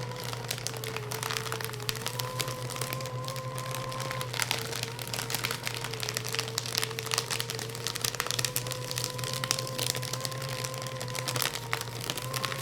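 Electric paper shredder running through thick stacks of paper: a steady motor hum under dense crackling and tearing of paper in the cutters. The hum dips slightly in pitch a few times.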